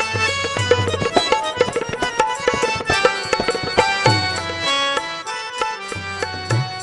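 Harmonium playing the bhajan melody over a hand drum's quick, steady strokes with low booming beats: an instrumental interlude between sung verses of the devotional song.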